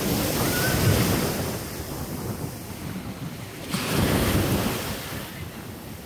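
Sea surf breaking on the shore, the roar swelling twice, at the start and again about four seconds in, with wind buffeting the microphone.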